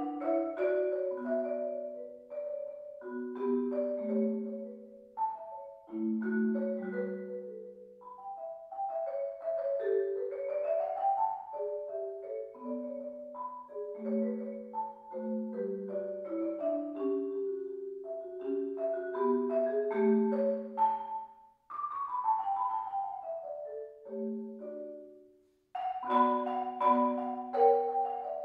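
Solo marimba played with mallets: a quick running line of single ringing notes, with a falling run and a brief break near the end before the notes pick up again.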